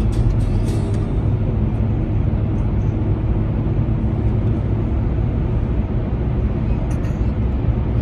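Volvo XC90 V8 cruising steadily, its engine and tyre rumble heard from inside the cabin.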